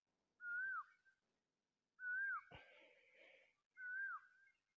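A bird's short whistled call, repeated three times at even spacing of under two seconds; each faint note holds level and then drops in pitch at its end.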